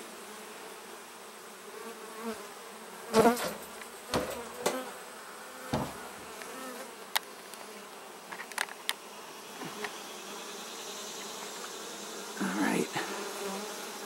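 A large honey bee colony buzzing steadily, thousands of bees clustered on exposed comb. A few sharp knocks and clicks break in between about 3 and 9 seconds in.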